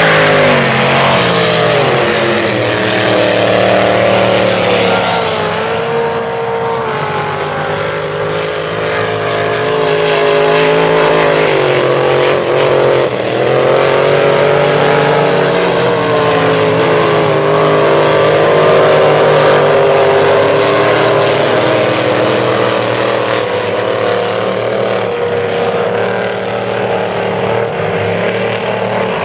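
Supercharged displacement race boat engines running at high revs as the boats race past. The engine pitch falls as the nearest boat goes by at the start, then rises and falls again with engine notes from the boats farther out.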